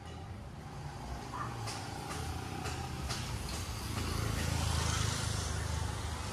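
A road vehicle passing on the street, its engine rumble and tyre noise growing louder to a peak about four to five seconds in, with a few light clicks before that.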